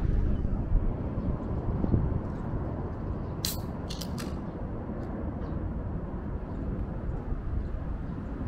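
Aluminium cola can cracked open by its pull tab about three and a half seconds in: a sharp crack with a short fizz of escaping gas, then two more quick clicks. A steady low rumble runs underneath.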